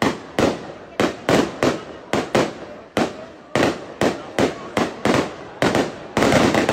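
Aerial fireworks shells bursting in quick succession: a rapid, irregular string of sharp bangs, about two to three a second, each with a short echoing tail, coming thicker near the end.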